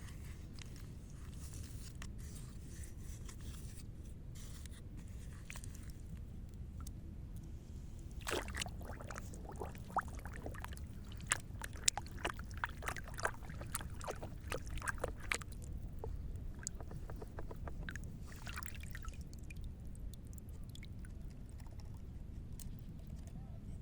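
Water trickling and sloshing with scraping and small clicking knocks, thickest for several seconds in the middle, over a steady low rumble.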